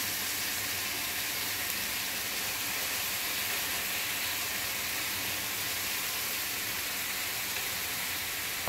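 Thick-cut bacon strips sizzling steadily in a hot skillet.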